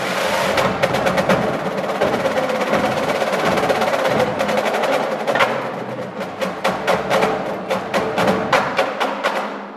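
Drumline of snare drums, multi-tenor drums and bass drums playing a dense run of rapid strikes and rolls.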